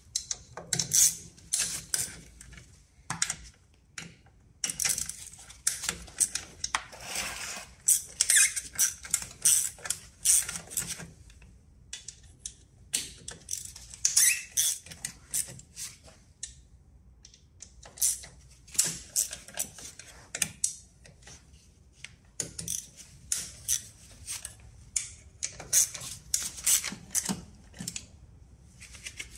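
Metal hand tools clicking and clinking as 7 mm screws are undone on a scooter's transmission cover: irregular runs of short, sharp ticks with brief pauses between them.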